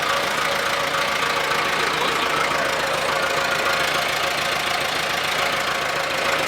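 Motor of a kid-sized play bulldozer ride running steadily as its levers are worked, an even mechanical hum with a constant whine.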